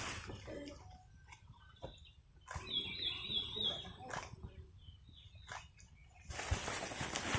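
A small bird chirping a quick run of about five short notes about three seconds in, over faint background voices and scattered knocks. A shuffling, rustling noise comes in near the end.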